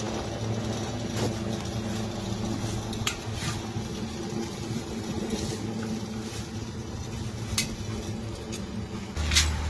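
A small electric motor hums steadily with a low mains-frequency tone, while a handful of sharp metallic clicks and clinks from tools or fittings are heard over it.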